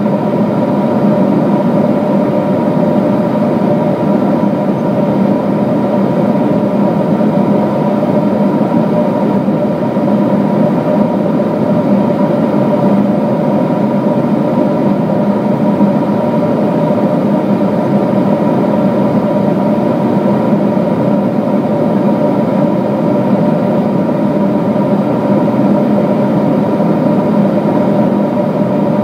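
Steady cabin noise of a Boeing 777-200 airliner in cruise, heard inside the cabin at a window seat over the wing: a constant rush of engine and airflow noise with a few steady hums under it.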